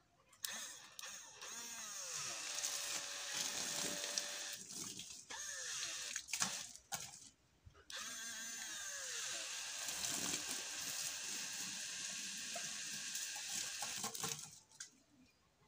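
Homemade mini water pump driven by a 12 V D775 DC motor, running in a tub of water as its lead is held to a battery terminal, with a whirring whine that speeds up and slows down. It starts about half a second in, cuts out briefly twice as the connection is broken, and stops near the end.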